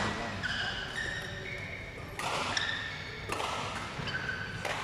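Badminton rackets striking shuttlecocks, a few sharp hits about a second apart, with court shoes squeaking on the court mats, echoing in a large sports hall.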